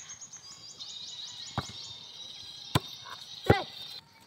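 A high, steady buzzing trill with rapid falling chirps, cut off suddenly near the end, over three sharp thuds of a football being kicked; the loudest kick comes about a second before the end.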